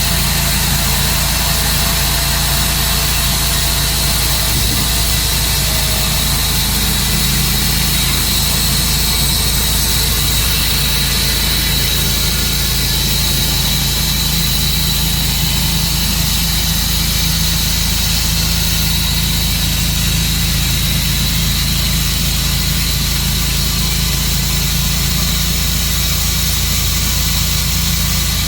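Sawmill's engine running steadily, with a steady high whine above the low engine hum.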